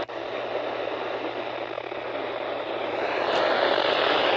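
Weather radio static: a steady hiss with a faint low hum underneath, growing louder about three seconds in.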